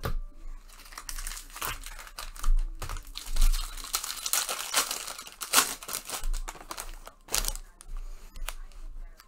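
Foil wrapper of a baseball card pack being torn open and crinkled: a long run of crackling with sharp tearing sounds, loudest a few seconds in.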